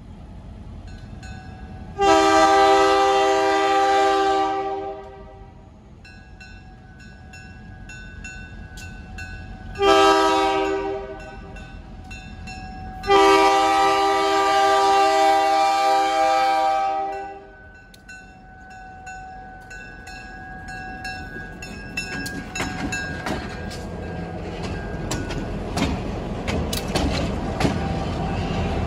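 GMD GP40-2LW diesel locomotive's air horn blowing for a grade crossing: a long blast, a short one, then a longer blast of about four seconds. Afterwards the locomotive's engine and wheel noise grow steadily louder as it draws near.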